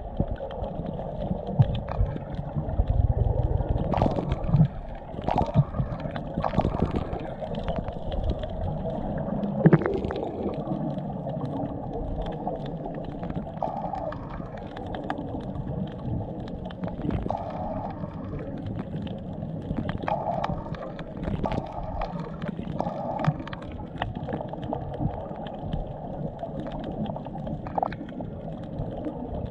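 Muffled underwater water noise picked up by a submerged camera: a steady low swishing and gurgling, with scattered knocks in the first ten seconds or so.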